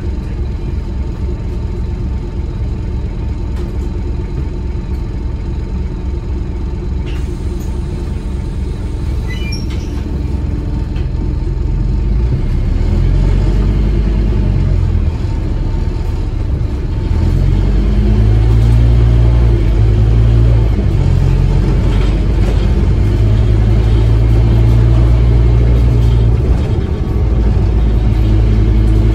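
Scania N230UD OmniCity bus's five-cylinder diesel engine, heard from inside the bus. It idles at first, then about twelve seconds in the bus pulls away and the engine gets louder. The note rises and drops back as it changes up through the gears.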